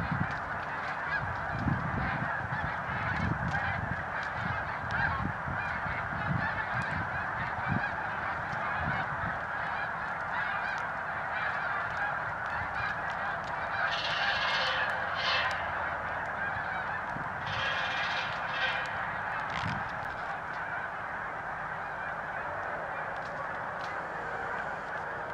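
A large flock of geese in flight, many birds honking at once in a continuous, dense chorus.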